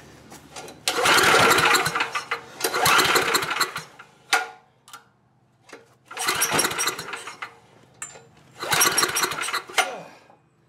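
Tecumseh 10 hp engine on a portable generator pull-started four times, in two pairs, each pull cranking it over for about a second without it settling into a run. The engine is starting hard, which the owner puts down to its carburetor.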